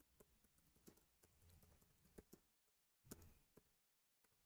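Faint, irregular keystrokes on a computer keyboard as a command is typed, over near silence.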